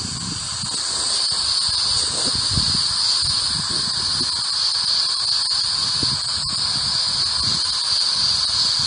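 Ghost Radio app putting out continuous static: an even hiss with a steady high whine on top and faint low blips underneath.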